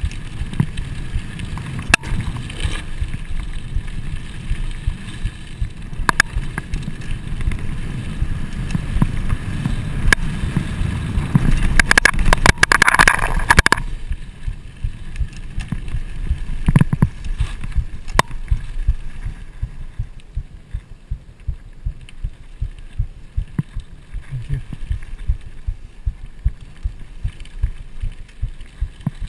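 Trek Fuel EX full-suspension mountain bike running fast down dry dirt singletrack: tyre rumble and wind buffeting on the microphone, with frequent sharp rattles and clanks from the bike over bumps. About twelve seconds in a louder gritty hiss lasts a couple of seconds, and the noise is quieter over the last third.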